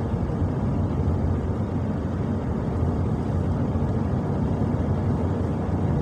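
Steady low rumble of a truck driving along: engine and road noise with no sudden events.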